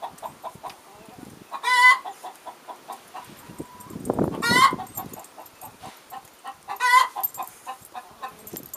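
Rhode Island Red hen cackling: runs of short clucks broken three times by a loud, drawn-out squawk, about every two and a half seconds.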